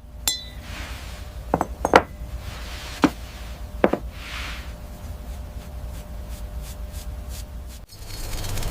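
Light knocks and taps of hard objects, five of them in the first four seconds, the first with a short glassy ring. They are followed by a run of faint, quick ticks.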